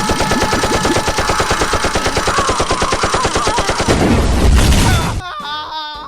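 Machine-gun sound effect: a long, fast, even burst of shots, about ten a second, that ends in a low rumble a little after four seconds in.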